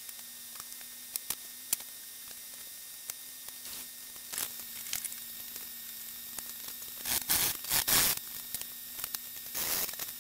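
Handsaw cutting a wooden dowel held in a bench vise: a few rasping saw strokes in the last three seconds, after scattered faint ticks over a low steady hum.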